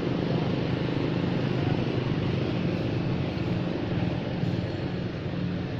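An engine running steadily: a constant low drone.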